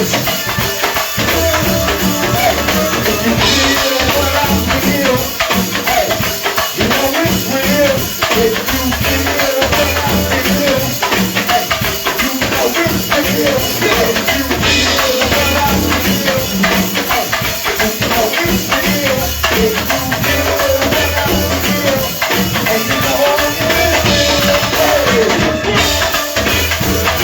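Live band music with a steady, even beat: drums and percussion over a repeating bass line, with a melodic part above.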